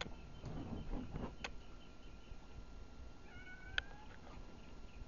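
Faint short animal calls that slide in pitch, a couple of them about three and a half seconds in, among a few sharp clicks.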